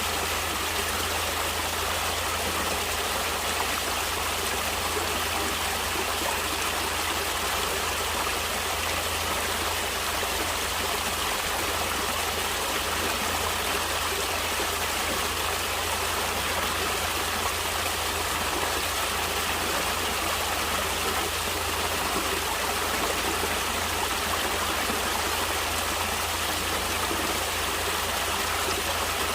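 Stream water flowing steadily, an even rushing and trickling without pauses.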